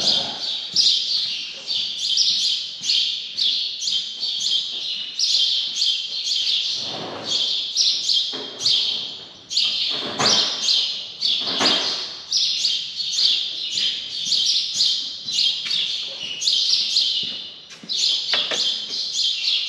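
Many small birds chirping in a dense, continuous chorus of quick, high chirps, with a few duller knocks from work going on underneath.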